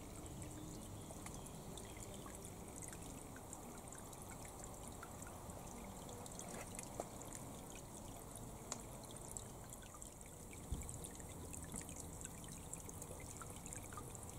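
Faint, steady trickle of water running into a small garden grotto pool, with many tiny drips and splashes.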